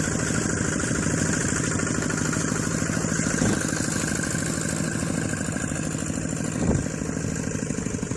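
A small engine running steadily with a fast, even beat, with a couple of short knocks along the way.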